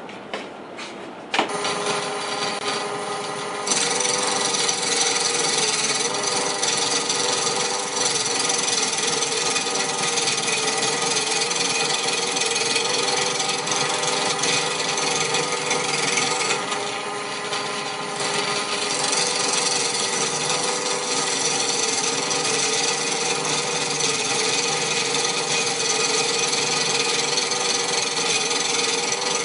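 Homemade woodturning lathe's electric motor starting about a second and a half in and humming steadily, then a hand-held turning tool cutting into the spinning wooden blank: a continuous rasping scrape, easing off briefly a little past halfway.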